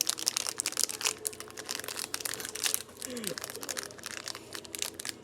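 Plastic snack packaging crinkling and crackling in rapid, irregular bursts as it is handled and pulled at.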